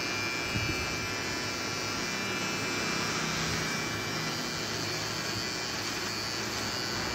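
Electric hair trimmer running steadily as it is drawn up the neck, cutting beard stubble.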